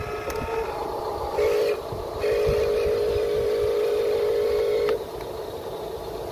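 Radio-controlled truck's electric motor whining at a steady pitch in bursts: a short burst about a second and a half in, then a longer one of nearly three seconds that cuts off about five seconds in.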